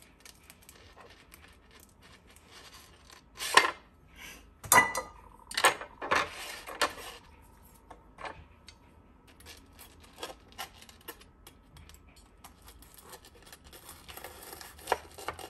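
Metal knife and fork clinking and knocking on a cutting board, a few sharp strikes between about three and seven seconds in, one ringing briefly. Near the end the knife saws through the crisp fried batter of a corn dog with a rasping crunch.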